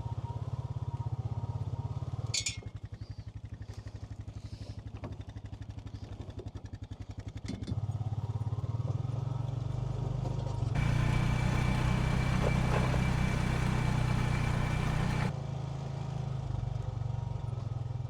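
Honda Pioneer 520 side-by-side's engine running as it drives, getting louder and fuller for several seconds past the middle before easing back.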